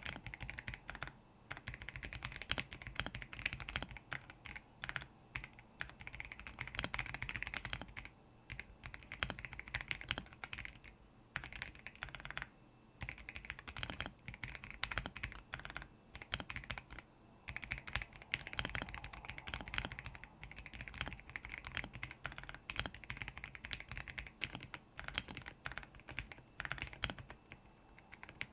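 Royal Kludge R75 mechanical keyboard with lubed RK Brown tactile switches being typed on fast: a dense, steady run of keystroke clacks, broken now and then by short pauses.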